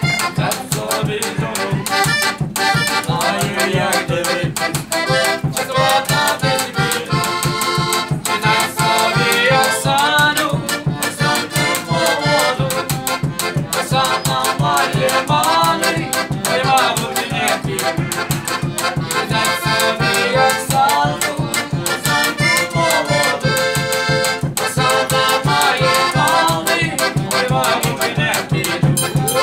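Upbeat folk-style instrumental music led by an accordion over a fast, steady beat.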